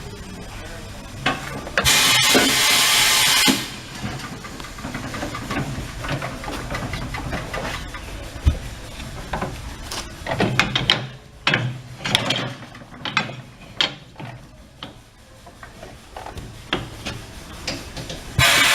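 Compressed air hissing in a loud burst of about a second and a half, then again near the end, with clicks and knocks of tools and wheel equipment in between.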